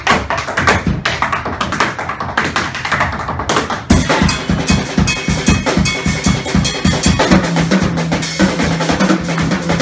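Tap shoes striking a wooden stage in fast, dense improvised rhythms. About four seconds in, a band accompaniment with drums and a low bass line joins the taps.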